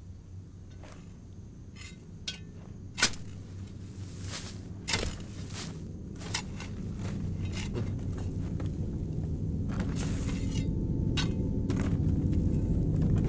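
Digging in dirt and gravel: a string of scrapes and sharp knocks, the loudest about three seconds in. Under it a low drone swells steadily through the second half.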